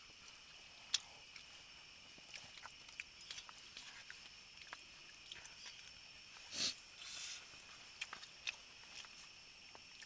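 Faint eating sounds: scattered small clicks and taps, with a short breath about six and a half seconds in, over a steady faint hiss.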